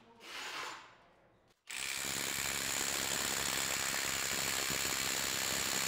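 Ridgid mid-torque impact wrench hammering steadily on a bolt in a torque-test fixture. It starts about two seconds in and keeps up an even, rapid rattle of impacts, with a thin high whine through it.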